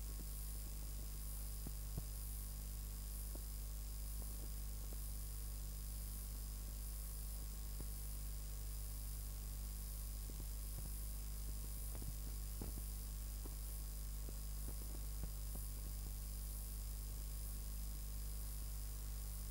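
Steady low electrical mains hum with hiss, from a blank stretch of old videotape, with a few faint scattered clicks.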